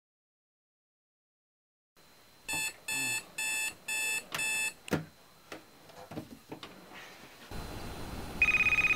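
Digital clock-radio alarm beeping four times about two seconds in, then a click as the beeping stops, followed by faint knocks and rustling. Near the end a telephone starts ringing with a steady electronic trill, louder than the alarm.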